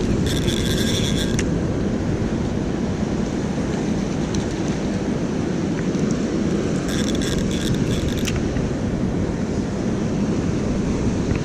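Steady rush of water spilling over a river dam. Two short mechanical whirs, each about a second long, come from a fishing reel being worked: one near the start and one about seven seconds in.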